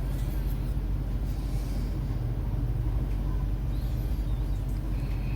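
Steady low background rumble at an even level, with no distinct clicks or knocks.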